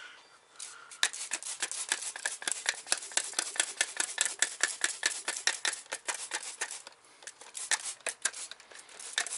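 Hand trigger spray bottle being pumped over and over, a quick run of short squirts several a second with a brief pause near the end, until the bottle runs low.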